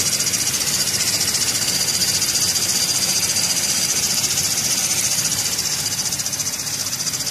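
Diesel engine running with a noisy belt tensioner pulley giving a steady high-pitched hiss over the engine's hum, the sign of a worn pulley bearing.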